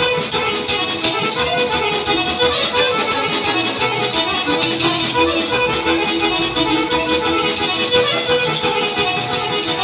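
Live Balkan folk band playing a tune: accordion and violin carry the melody over bass guitar and drums, with a quick, steady beat.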